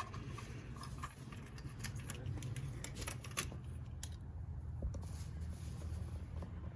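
Scattered light clicks and small rattles of tools or engine parts being handled, over a steady low hum.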